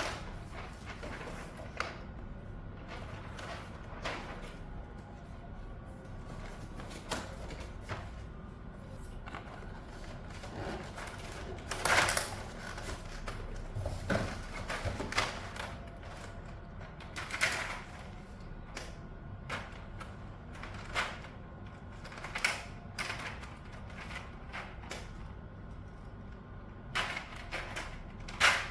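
Typing on a mechanical keyboard fitted with PBT dye-sublimation keycaps: an uneven run of key clacks, with a few louder strokes scattered through it.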